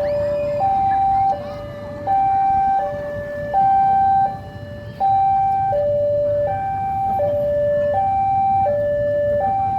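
Railway level-crossing warning alarm sounding: an electronic two-tone signal alternating high and low, each tone held about 0.7 s, steady and even in pitch, warning that a train is coming. Low traffic engine rumble underneath.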